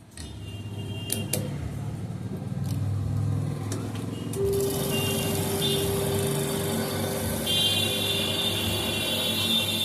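Electric fan motor starting up after a few clicks, spinning up over a few seconds and then running with a steady hum and a whine.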